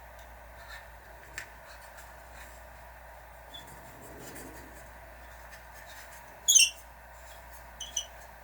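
Small handling sounds of hard objects: a few faint taps, then a sharp, bright clink late on and a smaller double clink just after, over a steady hum.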